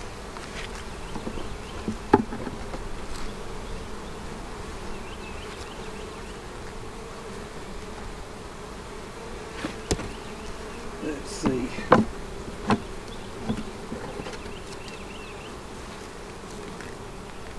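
Honeybees buzzing in a steady hum over an open hive, with a few sharp wooden knocks and clicks as frames are handled, the loudest about two, ten and twelve seconds in.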